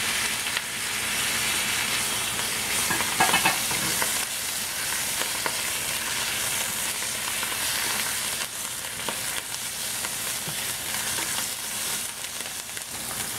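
Fresh spinach leaves sizzling in hot oil and garlic in a wok, stirred with a spatula that clicks and scrapes against the pan. A short louder stretch comes about three seconds in.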